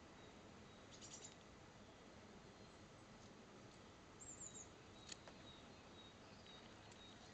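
Near-silent garden ambience with faint, high chirps of small birds, one short cluster about a second in and another about four seconds in. A single soft click comes about five seconds in.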